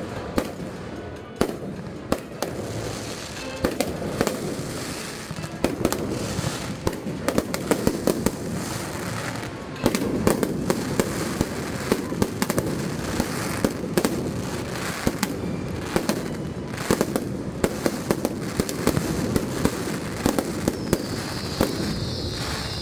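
Fireworks show: shells bursting in quick succession, sharp bangs over a continuous low rumble. The bangs come thicker and louder about ten seconds in.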